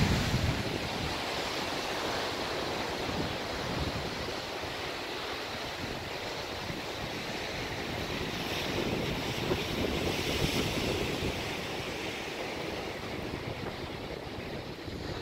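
Steady rush of surf breaking on a rocky shore, with wind buffeting the microphone.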